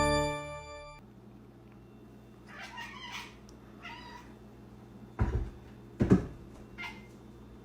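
A domestic cat meows twice, short and fairly soft, followed by two heavy thumps about a second apart. Organ music cuts off about a second in.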